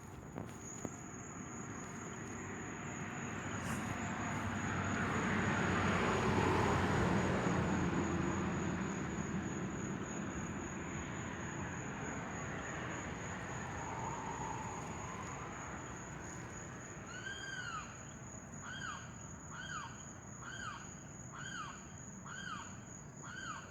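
An unidentified animal calling repeatedly: about two-thirds of the way in, a run of about eight short, arched, pitched notes, roughly one a second. Under it, a steady high-pitched insect trill runs throughout, and a broad rush of noise swells and fades in the first half.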